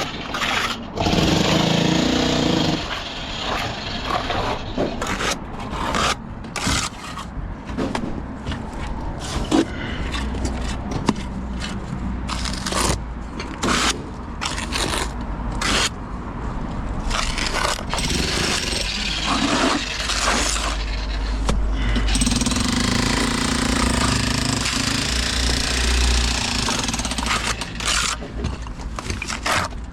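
Construction work noise: power tools and machinery running loudly, with scraping and repeated knocks, and a steady low engine hum joining about a third of the way in.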